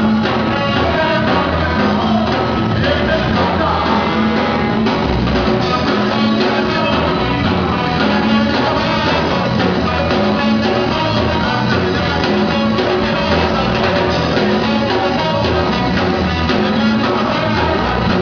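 Live band playing loudly, with a singer over guitars and drums.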